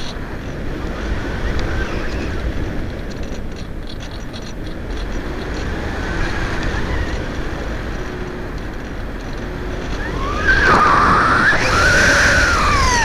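Airflow rushing over the onboard camera of a ParkZone Radian RC glider in flight, a steady rumbling wind noise. About ten seconds in, a louder whine joins it, rising and then falling in pitch as the plane goes into a steep dive.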